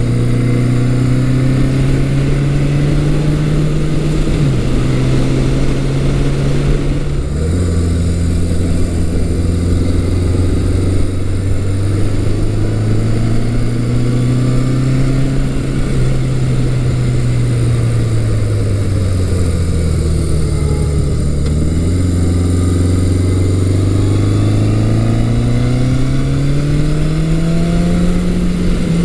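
The 1980 Yamaha XS1100 Special's 1100 cc four-cylinder engine pulling the bike along the road. The revs rise and fall, drop sharply about seven seconds in, sag later, then jump and climb steadily near the end.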